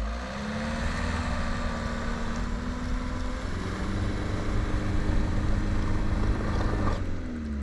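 Camper van engine revving under load and held high for several seconds, pushing into a heap of snow, then easing off about seven seconds in.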